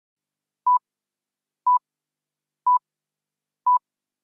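Four short electronic beeps from a workout interval timer, all at the same pitch and one a second, counting down to the start of the next exercise.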